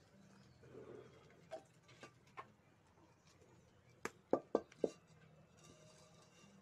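Aluminium wok knocking and clinking against a wood-fired stove as it is set down, with scattered light clicks and a quick run of four sharp knocks about four seconds in.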